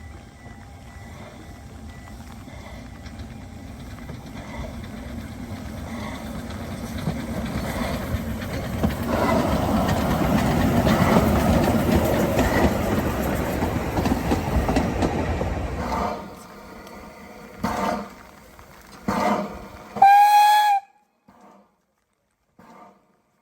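Narrow-gauge steam train running past, its noise building over about ten seconds and dropping away suddenly. Two short bursts of noise follow, then a brief steam whistle blast that is the loudest moment.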